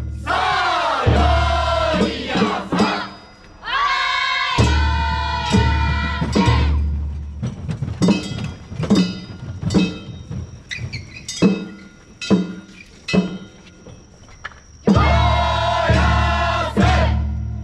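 A group of men shouting long, sliding calls in unison three times, over a low rumble, with a steady beat of sharp drum and bell strikes (about one every second) filling the gaps: festival float calls and accompanying percussion.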